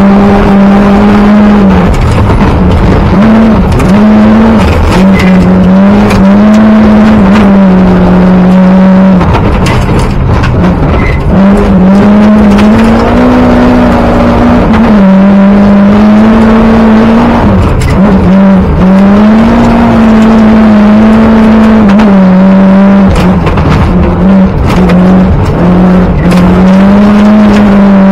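Group A rally car engine at full throttle, heard from inside the cabin: the engine note is held high and level, dipping briefly several times at gear changes and lifts. Gravel and tyre noise underneath.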